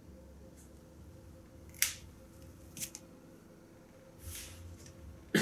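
Small fly-tying scissors snipping several times, sharp clicks with the loudest near the end, as fibres are trimmed from a rooster hackle feather. A faint steady electrical hum runs underneath.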